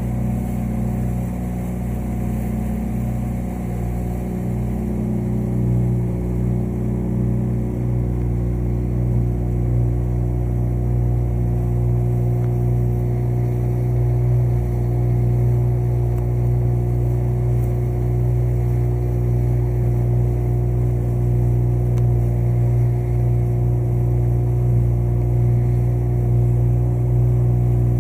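Small motorboat's engine running steadily at cruising speed, a constant low hum that grows a little louder over the first several seconds, then holds.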